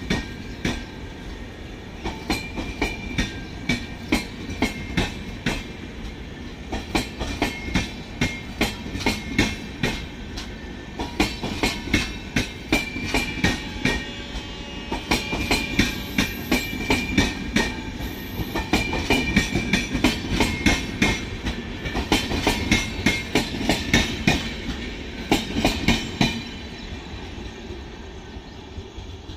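Express train of LHB passenger coaches running past at speed, its wheels clicking in quick regular groups over the rail joints, with a thin high ringing over the clatter. The clicking tails off near the end as the last coach goes by.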